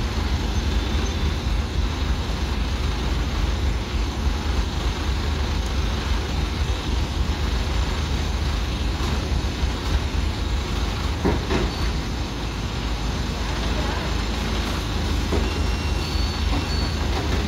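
Diesel engine of an ACE 12XW hydra crane running steadily with a deep rumble, under load as it holds a JCB 3DX backhoe loader on its hook.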